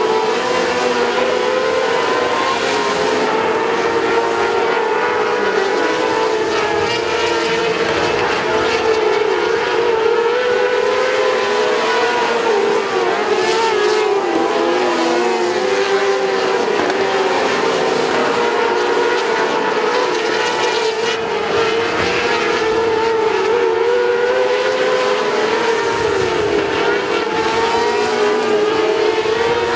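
A field of 600cc outlaw micro sprint cars racing, their motorcycle engines held at high revs in a loud, continuous drone whose pitch wavers up and down as the cars lap.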